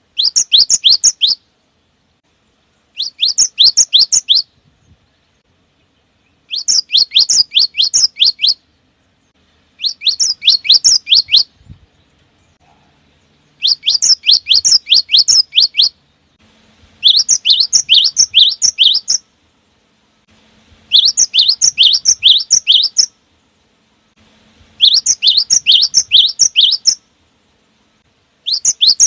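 Cinereous tit (gelatik batu) singing: repeated phrases of rapid, evenly spaced, high downward-sweeping whistled notes, each phrase lasting about two seconds with short pauses between, about eight phrases in all.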